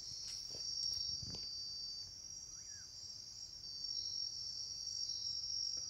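Crickets trilling in a steady, high-pitched chorus.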